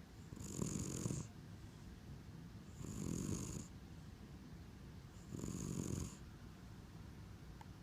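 A cat snoring, three snores about two and a half seconds apart, each under a second long and carrying a thin high whistle on top.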